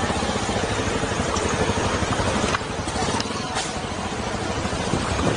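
Honda CRF250 Rally's single-cylinder engine running as the motorcycle is ridden, with a few short clicks in the middle.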